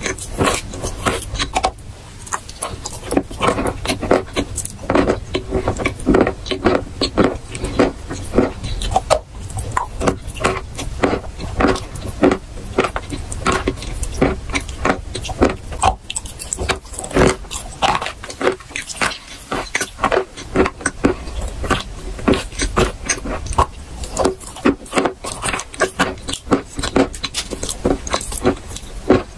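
Close-miked chewing of chalk: dense, irregular crunching and crackling in the mouth as the pieces break up.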